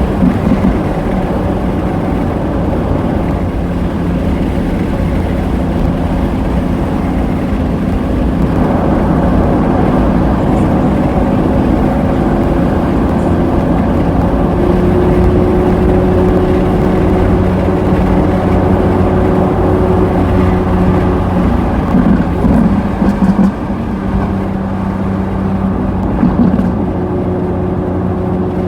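Lamborghini Aventador S's V12 running through a Power Craft aftermarket exhaust, a steady drone whose pitch drifts slowly. There are a few brief uneven bursts about three-quarters of the way through.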